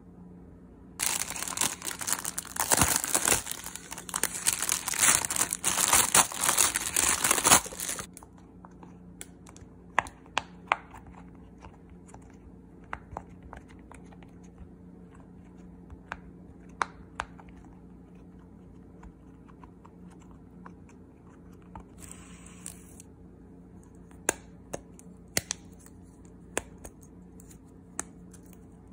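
About seven seconds of loud crinkling and tearing, then silicone pop-it fidget toys having their bubbles pressed: scattered short pops and clicks, a few at a time with gaps between, and a brief hiss about twenty-two seconds in.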